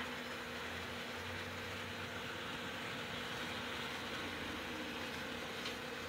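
Small model trains running on their track: a steady electric-motor whir and wheel rumble with a constant low hum.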